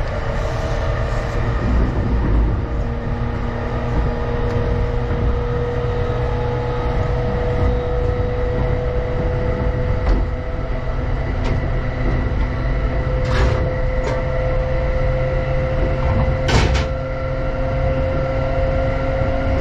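Running noise of an electric commuter train heard from inside the car: a steady rumble of wheels on rails, with a whine that rises slowly in pitch. Two short sharp clicks come in the later part.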